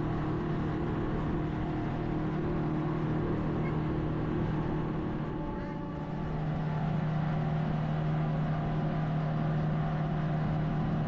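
Boat engine running with a steady drone, easing off slightly about halfway through and then picking up again.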